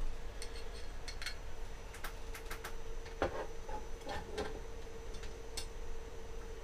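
Scattered light clicks and a few heavier knocks of small parts being handled while the stock spool holder is fitted onto a Creality CR-10S 3D printer's frame, over a steady faint hum.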